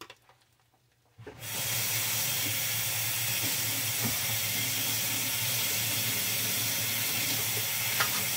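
Kitchen sink tap turned on about a second in and running steadily in a full rush of water, with a brief clink near the end.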